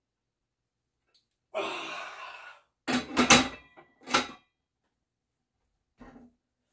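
A loaded barbell clanks down onto the metal hooks of squat stands: a cluster of sharp metal clanks that ring briefly, then one more a second later. Before it comes a long, forceful breath out at the end of a set of curls, and there is a faint knock near the end.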